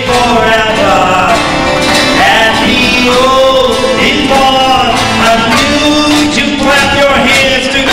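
A man singing a folk-style children's song while strumming an acoustic guitar.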